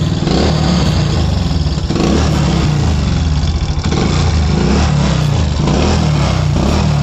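Motorcycle engine running and being revved up and down.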